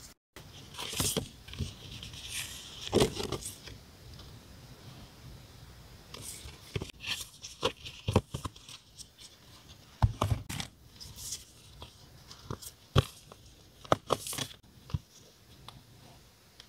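Paper stickers and labels being handled on a desk: scattered rustles, light taps and clicks, with a few short tearing sounds.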